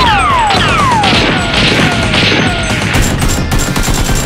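Dubbed gunfight sound effects over background music: a string of falling whistling sweeps, each about half a second, with bursts of hiss in the middle and a quick run of sharp cracks about three seconds in.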